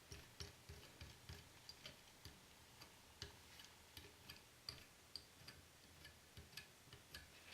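Near silence with faint, short ticking clicks, about two or three a second, not quite evenly spaced.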